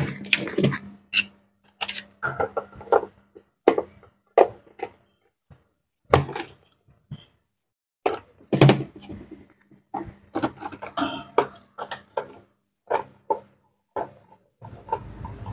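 Irregular plastic clicks, knocks and clatters as the hard plastic stand housing of a Maspion digital stand fan is handled and worked open, with screwdrivers set down and picked up on the bench.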